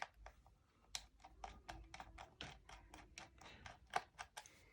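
Faint, irregular small clicks and ticks, about four a second, of a screwdriver turning out the screw on a laptop's plastic bottom panel.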